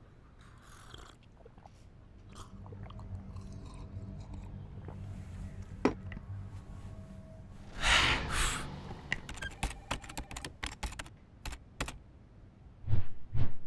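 Edited sound-design effects: a low rumble that builds up, with scattered clicks, a sharp click and then a rush of noise partway through. After that comes a quick run of clicks, and two heavy thumps near the end.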